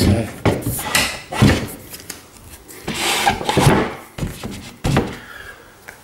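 Wooden plinth (kickboard) being pushed and knocked into place under a dishwasher onto the clips on its legs: a series of knocks and rubs, with a longer scrape about three seconds in.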